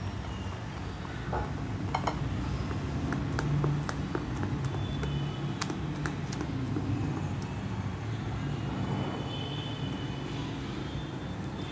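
Wire whisk beating flour into chocolate cake batter in a bowl, with scattered clicks and taps as the wires knock against the bowl's side.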